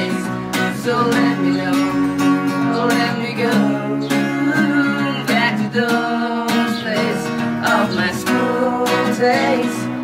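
Acoustic guitar strummed in a steady rhythm, with a male voice singing a melody over it at intervals.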